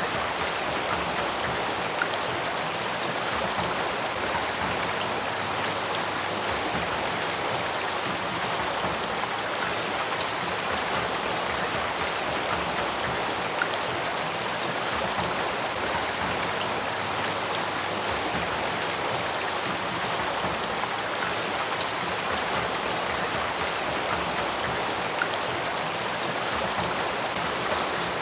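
Small spring-fed stream at the Sacramento River headwaters, water flowing and babbling steadily over rocks, with three faint ticks.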